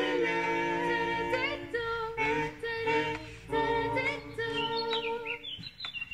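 A cappella school choir holding a chord, then breaking into shorter sung phrases that swoop up into each note. Near the end, short high rising calls are heard as the voices fade out.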